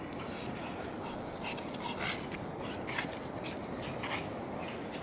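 Pugs playing and chasing each other, making short dog sounds, with a few short sharp scuffs over a steady background noise.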